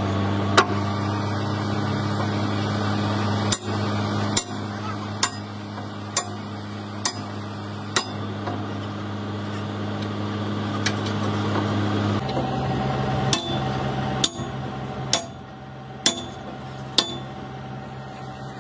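Excavator engine running steadily while the crawler track turns slowly, its steel links and shoes clacking over the idler about once a second. The engine note changes about twelve seconds in.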